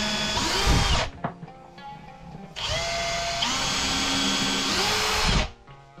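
Bosch 18V cordless drill drilling into plywood in two runs. The first ends about a second in; the second is a longer run of about three seconds. The motor whine shifts in pitch within each run.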